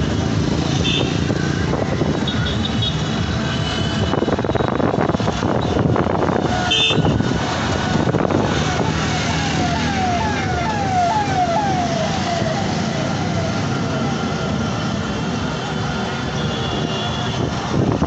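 Steady engine and road noise of traffic on the move. From about the middle, a siren-like tone sweeps up and drops again about twice a second for several seconds. A few short high beeps come before it.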